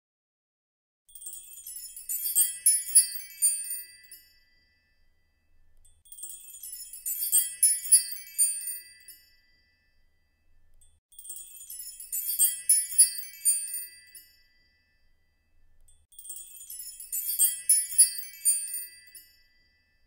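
A high, tinkling chime sound effect, the same few-second run of bright ringing strikes played four times about five seconds apart.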